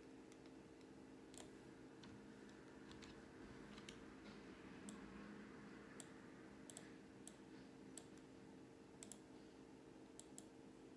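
Faint, irregular clicking, about a dozen short clicks scattered over the seconds, from someone clicking and underlining while marking up a text, over a low steady room hum.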